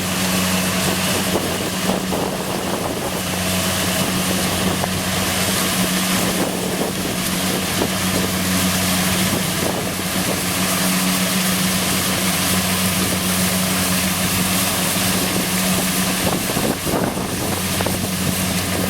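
Kubota DC60 combine harvester running steadily, its diesel engine and machinery making a constant, even drone.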